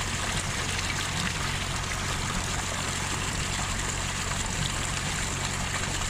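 Water gushing from a pipe outlet into a concrete irrigation basin: a steady rush and splash of water, with a low steady hum underneath.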